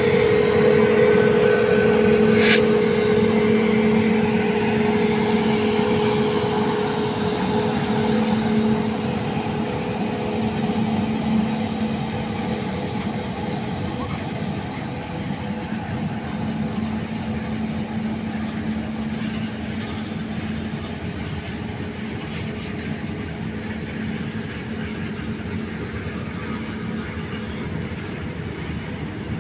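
An electric freight train passing slowly, with a WAG-9HC electric locomotive at its head. The locomotive's steady hum fades as it draws away, over the continuous rumble of open freight wagons rolling along the track. There is a brief sharp click about two seconds in.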